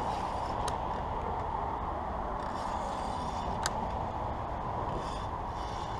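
Fishing reel being cranked while fighting a hooked catfish: a steady mechanical reeling sound, with two sharp clicks.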